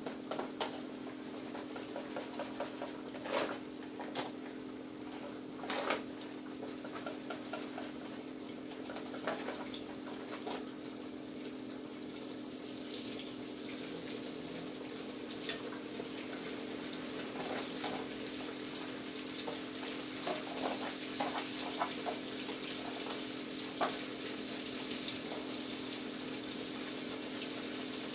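Breaded catfish frying in a pot of hot oil: a steady sizzle with scattered pops and crackles, a few sharper ones early on, over a steady low hum.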